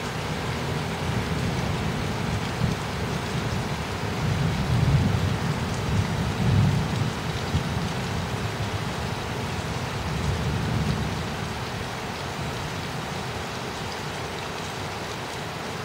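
Steady rain falling, with a long rolling rumble of thunder that swells about four seconds in, is loudest a few seconds later, and fades out again over several seconds.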